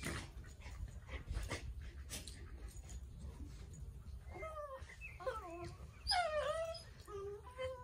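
Two beagles play-wrestling on grass: scuffling and rustling at first, then from about halfway through a run of high whining cries that bend up and down, loudest near the end.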